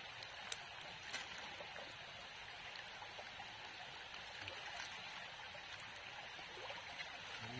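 Shallow rocky stream running: a steady, faint rush of water over stones, with two small clicks in the first second or so.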